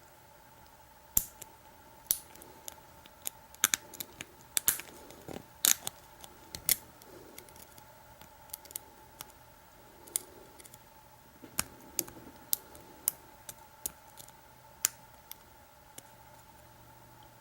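Irregular sharp metallic clicks and taps of a lock pick and tension wrench working in a padlock's keyway during single-pin picking. The clicks come in two clusters, over a faint steady electrical hum.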